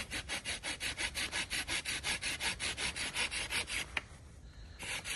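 Hand saw cutting through wood in quick, even back-and-forth strokes, about four or five a second. It pauses for about a second near the end, then starts sawing again.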